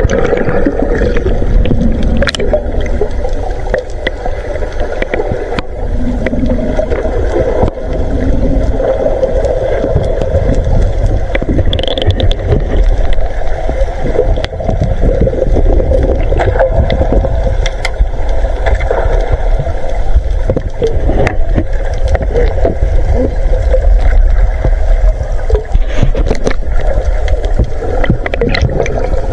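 Underwater sound picked up by a submerged camera: a steady, muffled rumble and gurgle of seawater, with scattered sharp clicks and taps.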